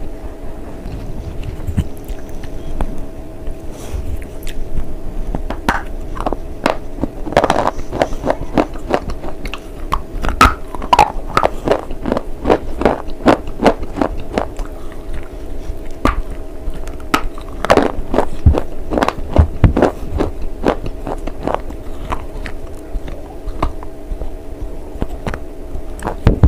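Close-up biting and chewing of brittle slate bars: many sharp, crisp cracks and crunches, coming thickest through the middle stretch.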